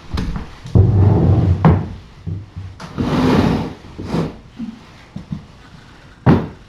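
Knocks and rustling of things being handled and moved close to the microphone. There is a loud stretch of rumbling, rustling noise about a second in, a shorter hissier rustle around the middle, and a sharp knock near the end.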